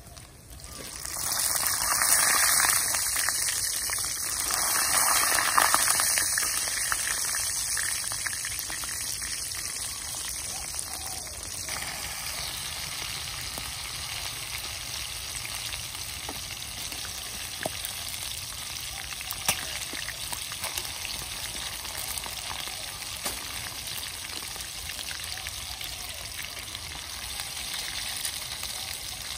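Spiders frying in hot oil in a wok over a wood fire: the sizzle flares up loudly about a second in, then gradually settles into a steady sizzle with an occasional sharp pop.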